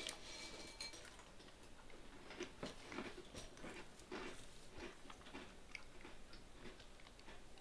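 A person chewing crunchy food with the mouth close to the microphone: a run of small, irregular crunches and clicks, thickest in the middle.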